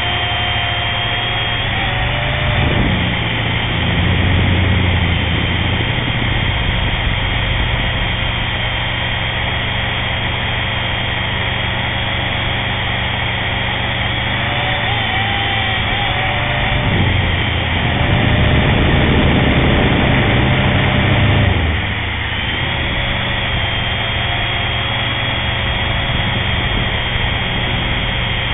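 Propel HD video drone's electric motors and propellers whining steadily, picked up by its onboard camera, the pitch shifting slightly as the throttle changes. A louder low rumble swells twice, a few seconds in and again past the middle.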